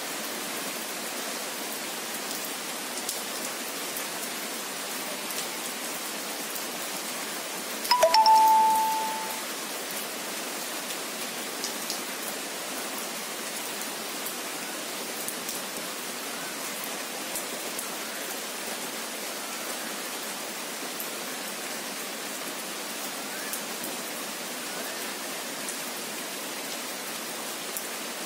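Steady rain falling. About eight seconds in, a single brief ringing tone sounds over it, held for about a second as it fades.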